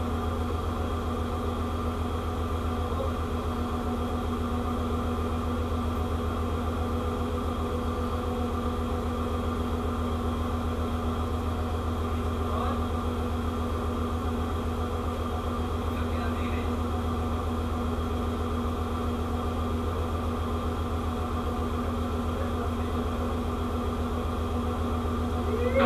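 Steady drone of a ship's machinery, a low hum with several fixed higher tones over it that does not change in level or pitch.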